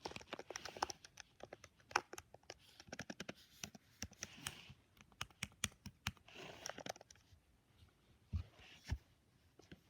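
Computer keyboard keys being typed on in quick, irregular clicks, thinning out after about seven seconds, with two soft low thumps near the end.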